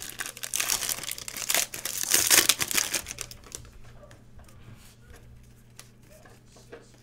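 Foil wrapper of a Panini Prizm football card pack crinkling as it is torn open, loudest over the first three seconds. After that, the faint rustle of the cards being handled and fanned out.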